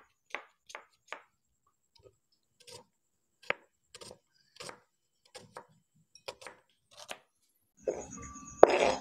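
Chef's knife chopping a red onion on a plastic cutting board: separate, irregular strokes about two a second. Near the end, a louder scrape as the chopped onion is pushed off the board into a glass bowl.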